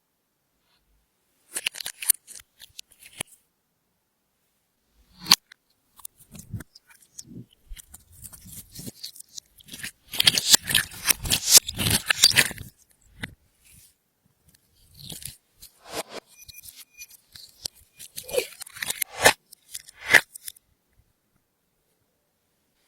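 Clear slime being worked by hand with glitter and makeup mixed in, giving irregular sticky crackles and pops. They come in several bursts with short pauses, loudest about ten to thirteen seconds in.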